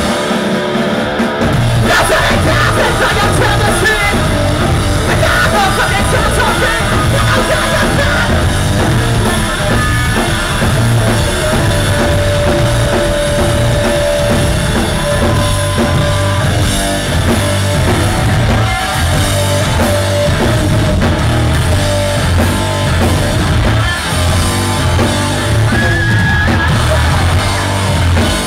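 Post-hardcore rock band playing loudly: distorted electric guitar and a drum kit, with yelled vocals over the top.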